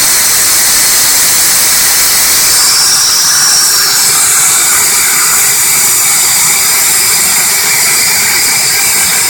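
Compressed air from a 10-gallon air compressor's tank blowing out steadily in a loud hiss through the inline regulator and hose as the pressure is bled off.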